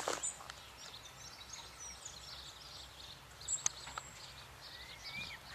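Small birds chirping and singing over faint outdoor background noise, with a short whistled call rising and falling near the end. A sharp click right at the start.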